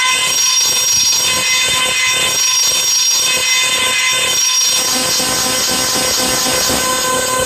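Black MIDI playback: thousands of synthesized piano notes per second from a MIDI player, blurring into a loud, shrill, dense cluster of held tones with a rapid flutter. The cluster fills out lower down in the second half as more keys are struck.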